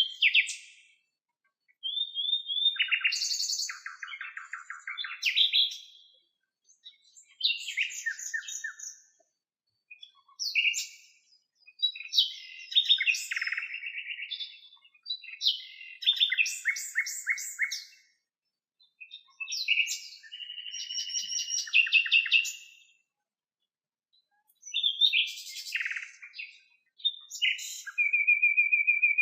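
Common nightingale singing: about seven separate phrases of two to four seconds, divided by short pauses, each built of rapidly repeated notes and trills, some with clear held whistles.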